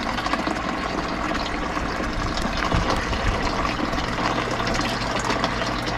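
Water running steadily through a hydroponic growing system's lines and reservoir, a continuous trickling and splashing with a steady low hum underneath.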